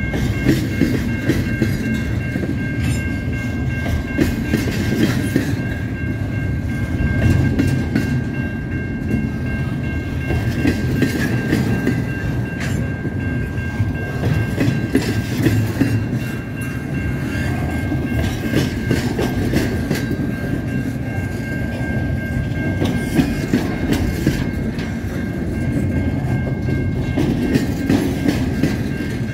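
Freight train cars rolling past, wheels clicking over rail joints over a steady rumble. A steady high-pitched ringing tone runs underneath.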